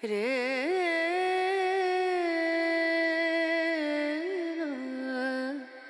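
A solo voice singing one slow, ornamented melodic line. It slides up into a long held note, makes a small turn about four seconds in, then steps down to a lower held note that breaks off near the end.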